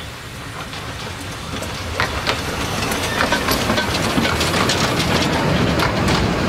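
Narrow-gauge steam passenger train running past close by, its wheels clicking over the rail joints. The rumble grows louder as the locomotive and then the carriages draw level, with the clicks coming thick from about two seconds in.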